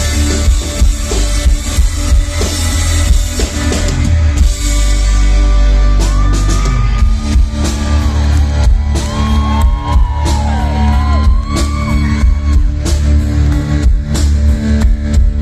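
Rock band playing live at full volume: drum kit, heavy bass and electric guitar, with high sliding notes in the middle.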